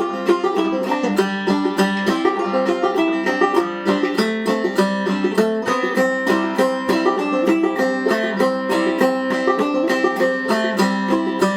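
Five-string banjo played solo in clawhammer style, in Double C tuning (gCGCD), with a quick, steady stream of plucked notes and brushed strums in the key of C.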